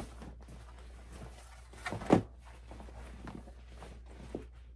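Fabric rustling as a garment is unfolded and handled, with a single thump about two seconds in and a lighter knock near the end.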